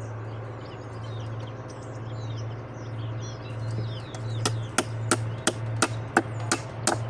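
Hammer driving nails into wood: a regular run of sharp strikes, about three a second, starting a little past halfway through. Birds chirp and a steady low hum runs underneath.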